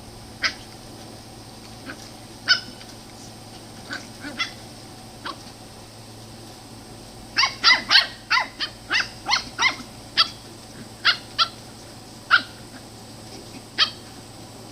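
Dachshund puppies yipping while play-fighting: short, high-pitched barks, scattered at first, then a quick run of about a dozen in the middle, then a few more.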